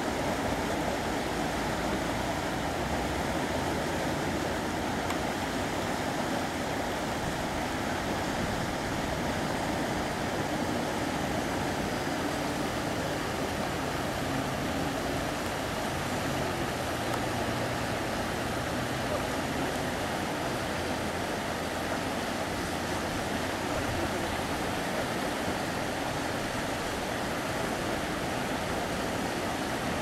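Steady rushing of flowing river water, an even, unbroken noise.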